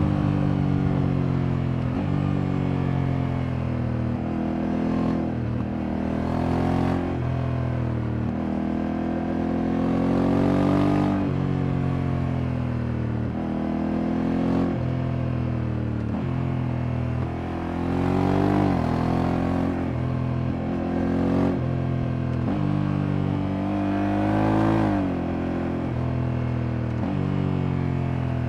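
Honda Africa Twin Adventure Sports' 1084 cc parallel-twin engine under way, its pitch repeatedly climbing and then dropping sharply as the DCT gearbox shifts, with a few stretches of falling pitch as it slows.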